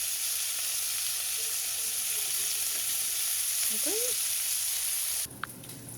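Chicken strips frying in butter, a steady sizzle that cuts off suddenly about five seconds in.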